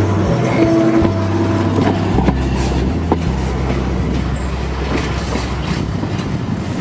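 Vintage Japanese-built electric streetcar rolling along its track, its wheels clicking a few times over rail joints, with background music underneath.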